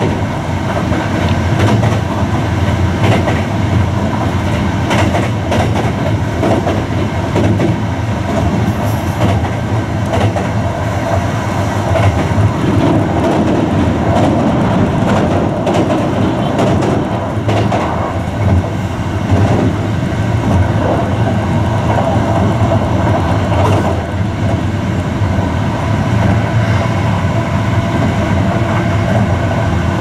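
Inside a Hankyu new 1000 series electric train while it is running: a steady rolling noise of the wheels on the rails, with irregular clicks as the wheels pass over rail joints.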